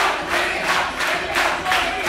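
A crowd clapping in unison, about three claps a second, with many voices shouting and chanting along.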